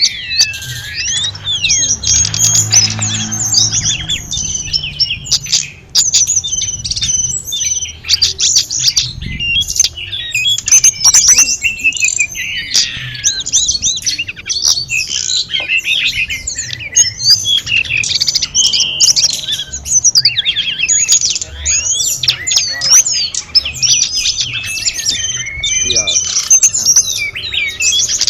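A tledekan gunung singing a rapid, varied stream of high chirps, trills and sweeping whistles almost without a break, over faint trickling water.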